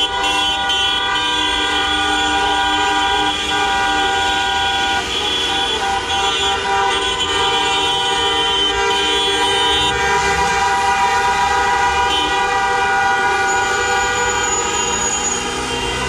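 Many car horns honking at once in long, overlapping blasts of different pitches, a protest horn chorus that goes on without a break, the mix of horns shifting as some stop and others join.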